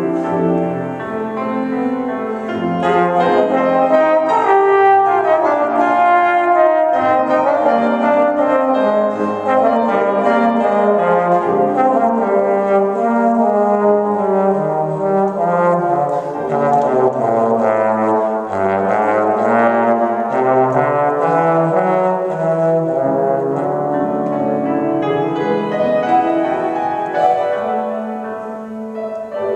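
Trombone playing a melodic solo line over grand piano accompaniment. Near the end the trombone stops and the piano carries on alone.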